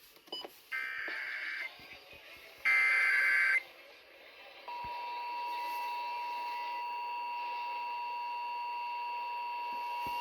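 NOAA Weather Radio emergency alert starting up: two short buzzing SAME digital header bursts, the second louder, then about a second later the steady 1050 Hz warning alarm tone comes on and holds. It signals that a warning is about to be read, here a severe thunderstorm warning.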